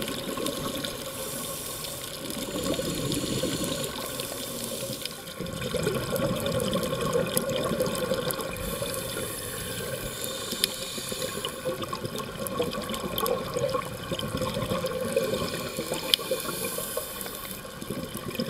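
Underwater sound of a scuba dive: a scuba diver's regulator breathing and exhaled bubbles over steady water noise. A high hiss comes three times, roughly every seven seconds.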